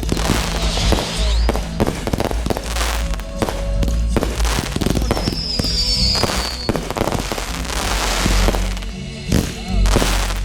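Fireworks going off in a rapid, continuous run of bangs and booms over a deep rumble, with a short high whistle a little past halfway.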